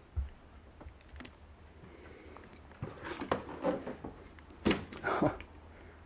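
A large sheet of cardboard and debris being shoved aside by hand: a thump just after the start, then irregular scraping, rustling and knocks, loudest around three and five seconds in.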